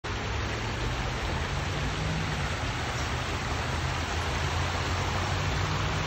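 Water pouring and splashing down a small waterfall: a steady rushing noise with a deep rumble underneath.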